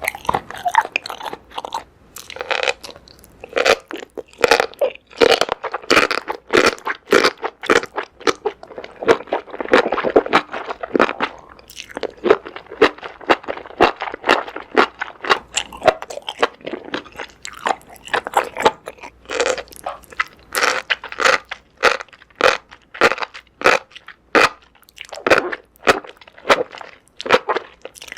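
Close-miked mouth sounds of a person eating: an irregular run of crunchy bites and wet chewing of noodles, enoki mushrooms and squid in spicy sauce.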